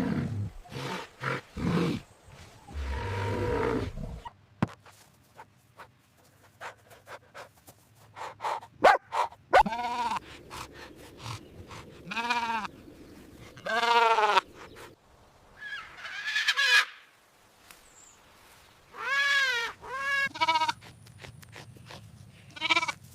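Goat or sheep bleating: about seven separate bleats, each under a second long, with a pitch that rises and falls. The first four seconds hold rough, noisy animal calls.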